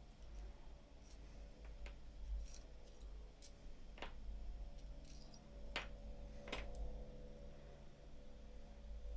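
Small parts of a paintball marker's ASA regulator being handled and taken apart: faint metallic clicks and ticks, with four sharper clicks a second or two apart.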